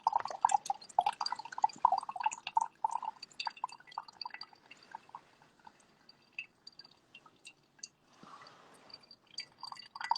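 Coffee slowly dripping, a fast run of small drips that thins out to scattered drops, with a short soft hiss about eight seconds in before the dripping quickens again near the end.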